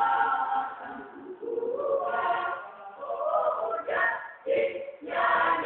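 A choir singing together, in phrases with short breaks between them.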